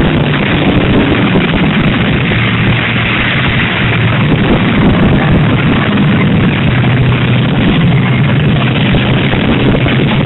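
Loud, steady engine noise from several demolition derby cars running and revving together in the arena.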